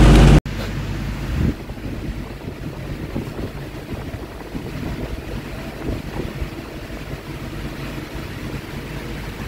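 Metal lathe running slowly, turning a brake drum: a low steady rumble during a concentricity check with a dial indicator. A louder sound cuts off abruptly about half a second in.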